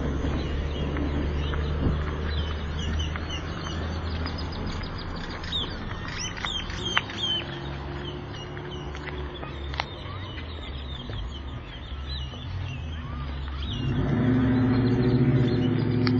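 Steady traffic hum with small birds chirping repeatedly through the middle. About fourteen seconds in, a vehicle's engine grows louder and stays up.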